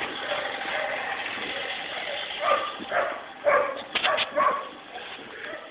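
A dog giving about six short, high barks, the last few in quick succession, over a steady hiss.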